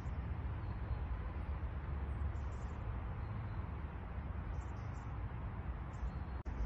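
Steady outdoor background noise with a low rumble and no clear single event, typical of wind or distant traffic picked up by a phone microphone.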